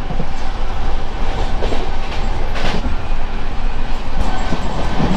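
Moving express train heard from inside a passenger coach: a steady running rumble and rattle, with one sharp click a little past halfway.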